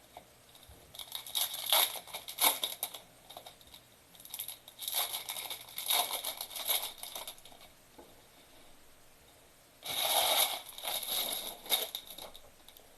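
Plastic wrapping on trading card packs being crinkled and torn open, in three spells with quiet pauses between.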